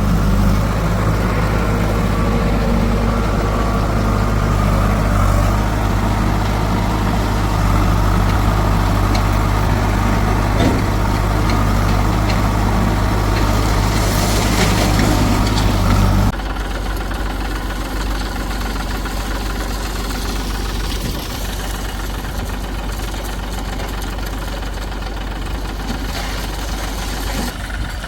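Diesel engine of the earth-moving machinery running steadily at an even, low pitch. About sixteen seconds in the sound changes abruptly to a quieter, different engine note.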